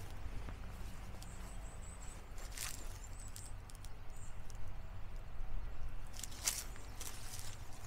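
Footsteps of someone walking outdoors, a few irregular soft steps, over a low steady rumble.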